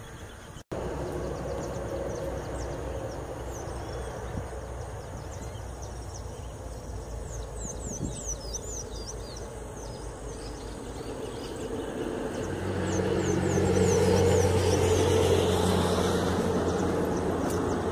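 A motor engine drones in and grows louder about two-thirds of the way through, peaking near the end, over a steady low outdoor rumble, with a few short high chirps along the way.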